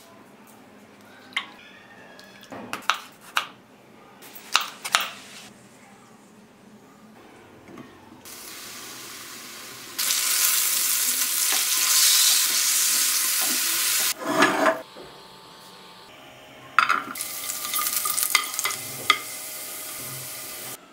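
Whole tomatoes knocking and splashing as a hand swishes them in a glass bowl of water, then tomato halves frying in hot oil in a nonstick pan with a loud, steady sizzle. After a brief knock, garlic cloves sizzle in oil in a pan near the end.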